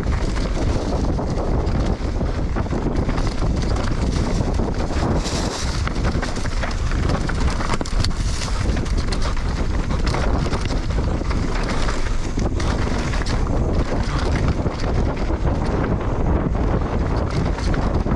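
Wind buffeting the microphone as a mountain bike rides fast downhill. Through it come many small rattles and knocks from the bike over rough trail.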